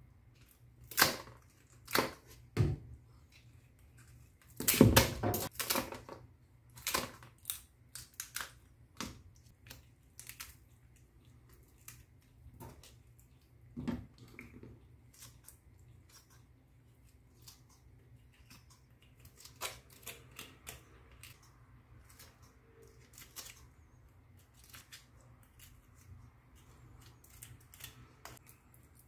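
Kitchen shears snipping through the shell and gills of a Boston lobster: irregular sharp clicks and cracks, the loudest cluster about five seconds in, lighter snips after.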